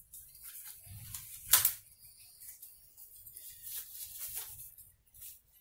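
Hands handling a deep-fry thermometer and its wrapping: light rustling and small clicks, with one sharp click about a second and a half in.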